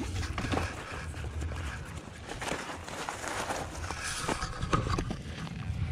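Rustling and scuffing as mosquito netting and gear are handled over dry leaf litter, with scattered short crackles and a low rumble of movement against the microphone.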